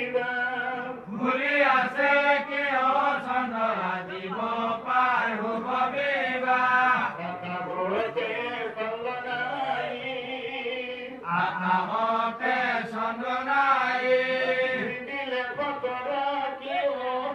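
Nagara Naam, Assamese devotional chanting: male voices chanting a melodic line without a break.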